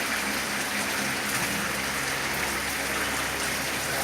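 A pot of fish soup broth at a full boil, bubbling steadily with a rain-like, crackling hiss.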